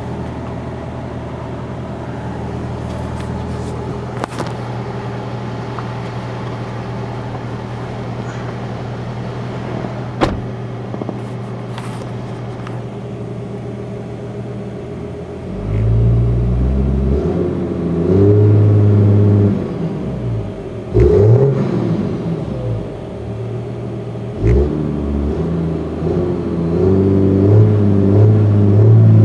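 2010 Dodge 6.7L Cummins turbo-diesel idling steadily through a 30-inch FTE resonator and 6-inch stack, then revved several times from about halfway through, the pitch rising and falling with each rev and a couple of quick blips. A few sharp clicks are heard during the idle.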